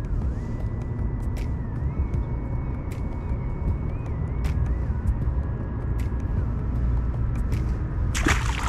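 Steady low rumble of road traffic on the highway bridge overhead. About eight seconds in, a short loud splash as a largemouth bass is dropped back into the water.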